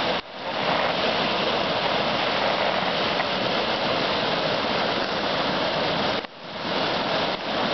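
Rushing water of a small mountain river tumbling over rocks in a steady, loud hiss. The sound drops out briefly twice, once right at the start and once about six seconds in.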